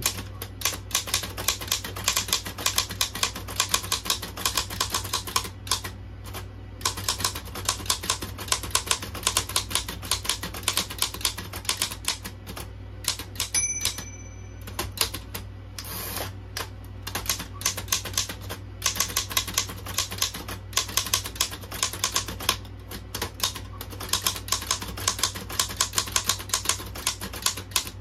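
Oliver No. 9 down-strike typewriter being typed on: fast runs of sharp key-and-typebar clacks with a few short pauses, and a brief ring about halfway through. It is a test typing after cleaning and setting up the drawband mainspring, on a machine the owner thinks is badly aligned.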